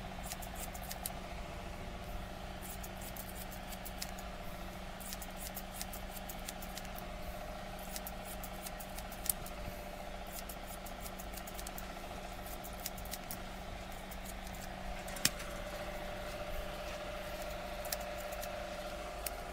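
Barber's scissors snipping hair, in irregular runs of quick small clicks with two sharper snips, over a steady electrical hum.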